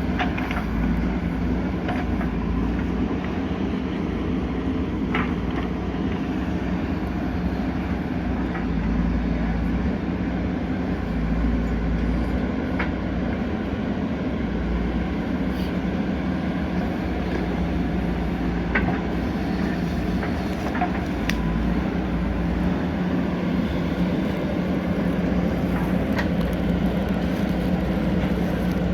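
JCB 3DX backhoe loader's diesel engine running steadily under work, with a handful of sharp knocks scattered through.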